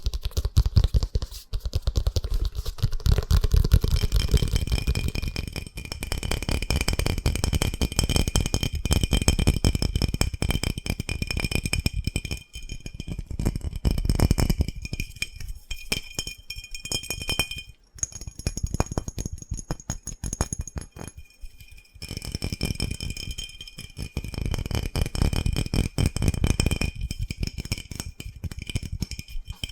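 Fast, hard tapping on a hard object: a dense stream of quick taps. From about four seconds in, the object rings with several high, clear tones under the taps, with short breaks twice near the end.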